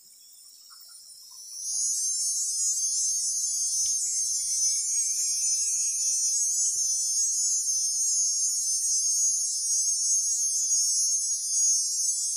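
Steady high-pitched chorus of insects, swelling up from faint to loud about two seconds in and then holding on.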